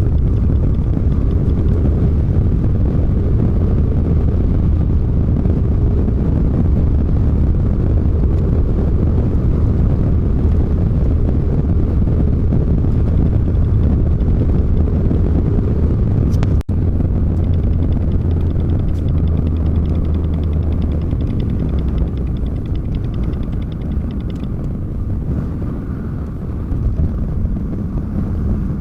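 Volvo semi-truck driving, with a steady engine and road rumble heard from inside the cab.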